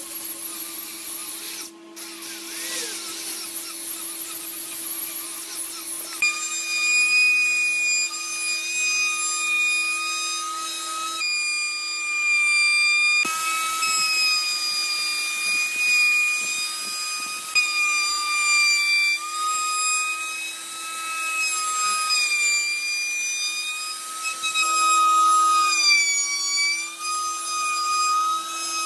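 Electric power tool running on wood with a steady whine that wavers and dips in pitch. The whine is very high for the first few seconds, then drops to a lower pitch about six seconds in, over a steady lower hum.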